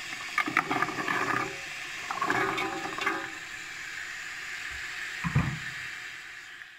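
Onion, celery and carrot sizzling in hot oil in a metal pot, with two bursts of clatter and scraping about half a second and two seconds in as diced carrots are scraped off a wooden chopping board into the pot and stirred with a wooden spoon. A low dull thump a little after five seconds, then the sizzle fades.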